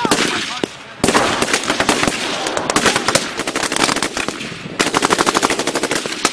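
Rapid military gunfire: many overlapping rifle shots and fast, evenly spaced automatic bursts, with a brief lull just before one second in.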